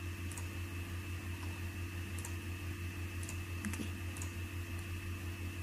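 A few faint, scattered clicks of a computer mouse over a steady low electrical hum with a faint higher tone.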